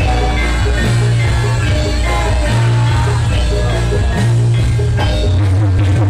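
Loud music with a heavy, steady bass line and held melodic notes.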